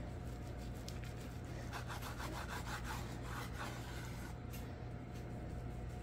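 A blunt kitchen knife sawing back and forth through a rolled omelette onto a wooden cutting board: soft rasping strokes, about four a second, in a run through the middle. The knife needs sharpening, so it saws rather than slices cleanly.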